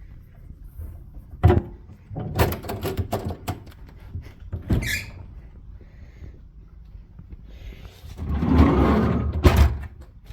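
A door being worked: a sharp click, a run of rattling knocks, then a longer rush of noise that ends in a single bang.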